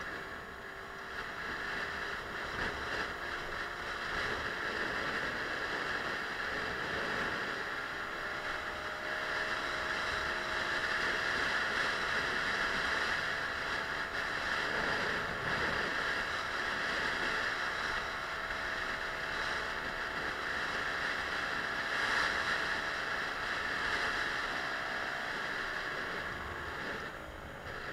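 Suzuki Let's 4 50cc four-stroke scooter engine running under way, with wind rushing over the microphone. The engine note climbs over the first few seconds, holds steady at cruising speed, then drops and fades near the end as the scooter slows.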